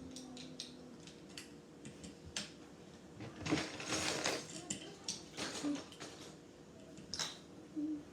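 Plastic Lego bricks clicking and rattling as pieces are picked through and pressed together, with a busier burst of clattering about halfway through.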